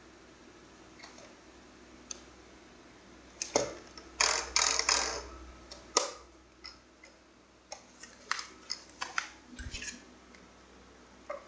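Plastic clicks and knocks from handling a Radiolink AT9 radio-control transmitter, as its buttons and switches are pressed and the case is picked up. A cluster of knocks and rustling comes a few seconds in, then a run of sharp single clicks.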